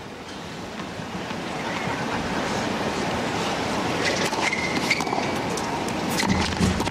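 Stadium crowd murmur under a tennis point on a hard court: from about four seconds in, several sharp racquet-on-ball hits, starting with the serve, with squeaks of shoes on the court among them. The crowd gets louder near the end.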